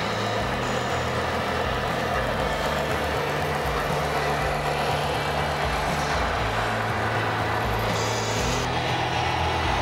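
Simulated heavy-truck diesel engine sound from the sound units of 1/14-scale radio-controlled tractor-trailers, running steadily, with a short hiss about eight seconds in.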